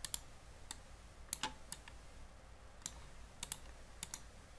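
Computer mouse clicking: about ten sharp, scattered clicks, several in quick pairs.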